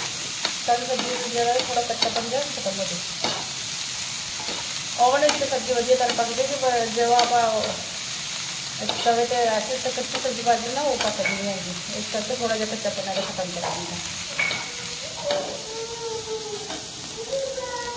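Chopped onion, capsicum and tomato sizzling on a hot tawa while a metal spoon stirs them, with scattered clicks and scrapes of the spoon against the pan. A wavering pitched sound comes and goes several times over it.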